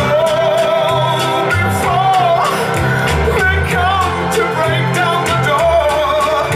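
A song with a singing voice over bass and a steady beat, played back over a tube-preamp hi-fi system and picked up by a camcorder microphone in the room.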